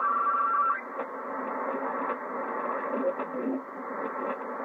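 Receiver audio from a Yaesu FT-757GX HF transceiver as its tuning dial is turned down through the 20-metre amateur band: narrow-band static with garbled snatches of mistuned single-sideband signals. A steady two-tone whistle stops under a second in.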